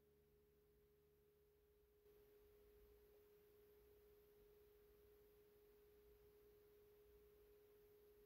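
Near silence with a faint single tone held steadily: a sustained note of the background music.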